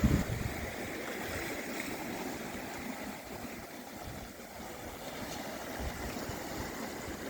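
Sea waves washing in a steady, even wash, with wind buffeting the microphone for a moment at the start.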